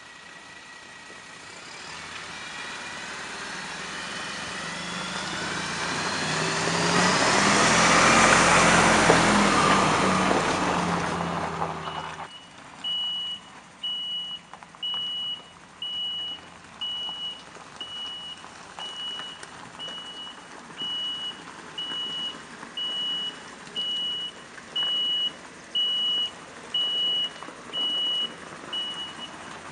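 Diesel engine of a MAN fire engine working down a steep gravel track, growing louder with a rising whine to a peak and then cutting off abruptly. After that, the truck's reversing alarm beeps steadily, a little faster than once a second, over its engine running quietly.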